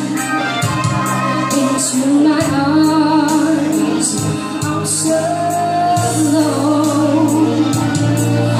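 A woman singing into a microphone over band accompaniment, holding long notes with vibrato over sustained bass notes and cymbals.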